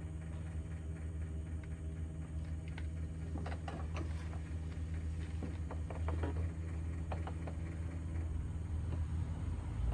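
Steady low mechanical hum, with a run of light clicks and taps, like hand tools on metal, from about three to seven seconds in.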